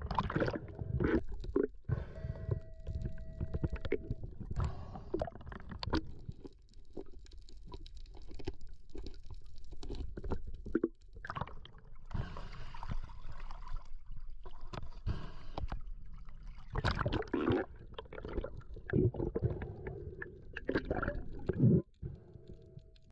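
Water swishing and gurgling around a camera filmed in the sea, with irregular knocks and bumps against the housing.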